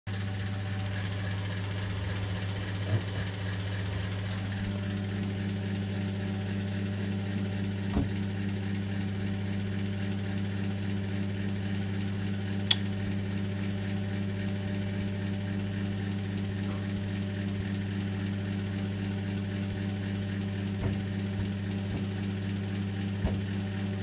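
A steady low machine hum with a handful of sharp clicks scattered through it, the sharpest about halfway.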